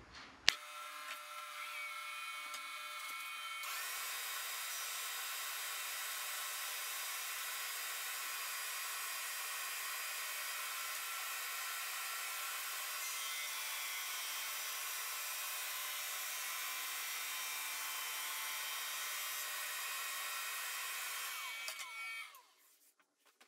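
Jet 16-32 drum sander switched on with a click, its drum motor running steadily with a few steady tones; a layer of rushing noise joins a few seconds in. About 22 seconds in it is switched off, and it spins down with falling pitch.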